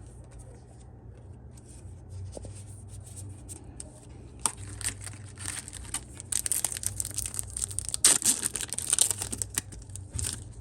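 A foil Yu-Gi-Oh! booster pack being torn open and crinkled: quiet handling at first, then a dense run of sharp crackles from about four seconds in, loudest near eight seconds.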